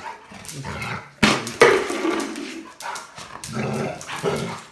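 Large black dog barking and whining in an agitated outburst. Two loud barks come a little past a second in, followed by pitched whining grumbles near the end.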